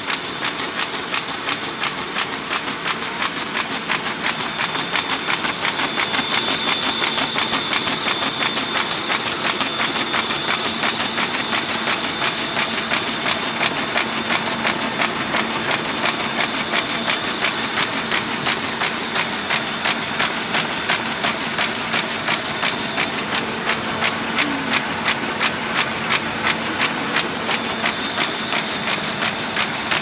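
Combination buckle-and-knife paper folding machine running, sheets feeding through with a rapid, even mechanical clatter. A thin high whine runs through the middle stretch.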